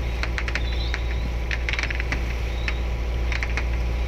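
Boat engine running steadily as a low hum, with irregular clusters of sharp clicks and rattles over it.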